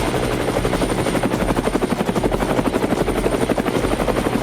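A small electric motor running steadily with a fast, even chopping rhythm and a thin high whine.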